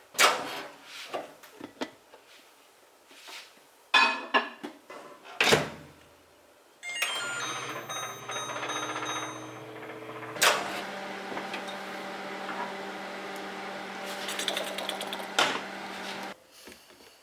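A few clicks and knocks, then a microwave oven running with a steady hum from about seven seconds in, changing pitch a few seconds later and cutting off suddenly near the end.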